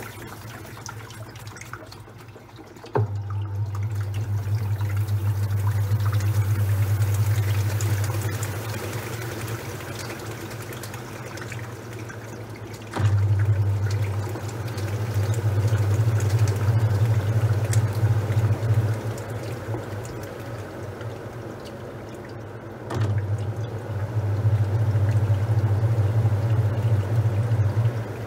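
Top-loading washing machine in its wash cycle: the motor hums in runs of about five to six seconds, each starting with a click, with pauses of about four seconds between, while water and towels slosh in the tub. Three runs are heard.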